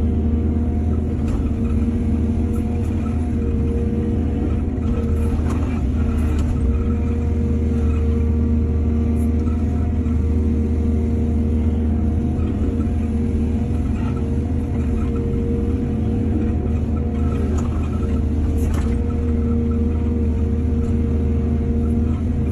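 Heavy diesel engine of an excavator at work, running at a steady pitch, with a few faint clanks along the way.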